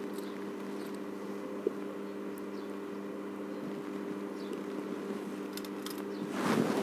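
A steady low hum throughout, with a faint click about two seconds in. Near the end comes a rustle of hands handling small metal jewellery findings.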